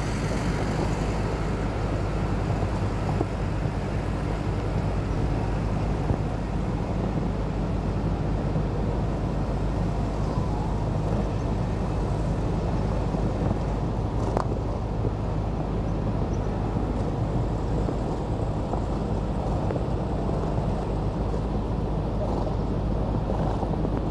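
Steady outdoor background rumble with a faint low hum, and one short click about fourteen seconds in.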